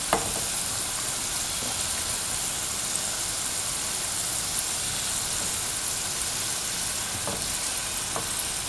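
Mung bean dough balls frying in shallow oil in a pan, a steady sizzle. A spoon clicks against the pan once at the start, and again faintly a couple of times near the end, as the balls are turned.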